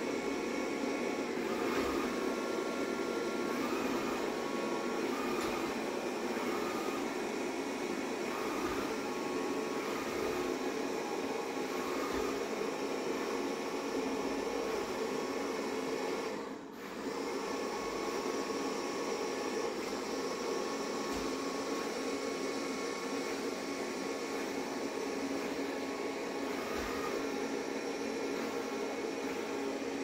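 Xiaomi Mi Robot Vacuum-Mop Essential robot vacuum running while it drives across a tiled floor: a steady whir with a faint whine over it, dropping briefly a little past halfway.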